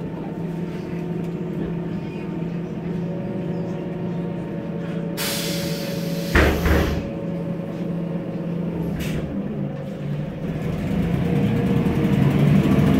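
MAN Lion's Classic city bus heard from inside the cabin, its turbocharged MAN E2876 CNG engine idling steadily. About five seconds in, compressed air hisses loudly for about a second and ends in a thump, and a shorter air hiss follows near nine seconds. Near the end the engine speeds up as the bus pulls away.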